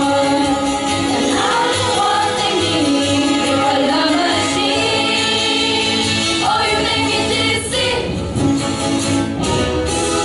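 Teenage voices singing a pop song together over instrumental accompaniment with a steady beat.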